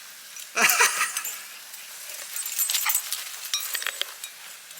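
A goldendoodle gives one short vocal sound about half a second in, then scattered faint clicks and rustles follow.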